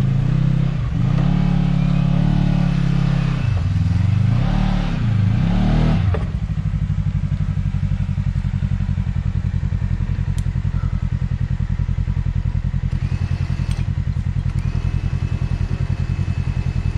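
Side-by-side UTV engine revving up and down in several swells for about six seconds, then dropping to a steady idle. A faint high whine joins in near the end.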